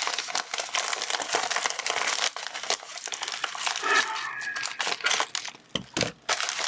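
Plastic mailer packaging crinkling and tearing as it is opened by hand, with a brief squeak about four seconds in and a few knocks near the end.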